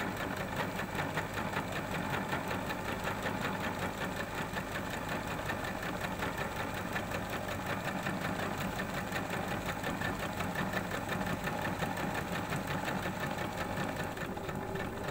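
Domestic electric sewing machine running steadily, sewing a long straight gathering stitch through folded calico, its needle strokes in a fast, even rhythm.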